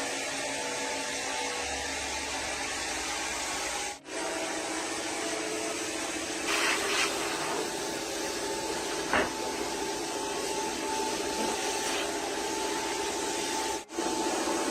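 Steady whir of a small motor or power tool, with a short scraping burst and a sharp tap partway through. It drops out briefly twice.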